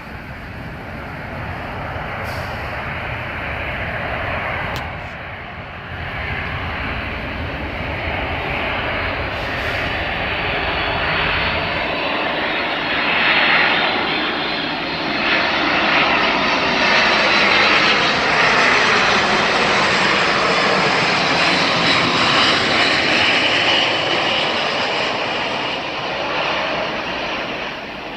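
Boeing C-17 Globemaster III's four turbofan jet engines running as the aircraft passes, the roar building to a peak and easing off near the end, with a whine that glides in pitch.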